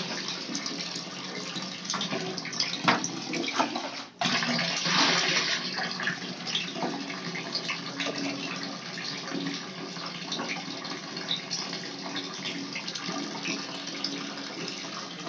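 Tap water running steadily into a container being filled. It cuts out briefly about four seconds in, then comes back stronger for a second or so.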